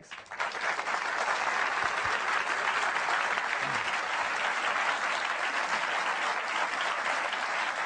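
Audience applauding: many people clapping at once in a dense, steady wash that starts suddenly and holds at an even level.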